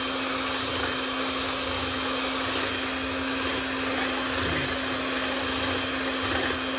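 Hamilton Beach electric hand mixer running steadily, its beaters whirring in a bowl, with a constant motor hum.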